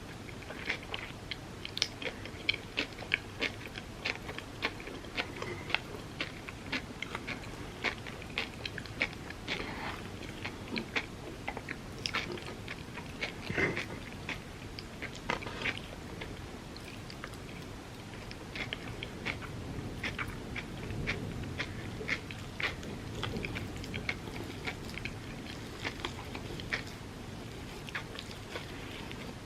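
Close-miked chewing and biting of Dubai chocolate crepes: a steady run of crunchy, clicking mouth sounds, thinning out briefly past the middle.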